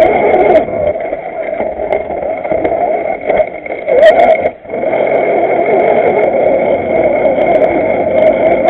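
Motor and drivetrain of a 1/6-scale RC Willys jeep crawler running under load, a steady mechanical whine that wavers with the throttle. About halfway through there is a sharp click and the whine briefly drops out before picking up again.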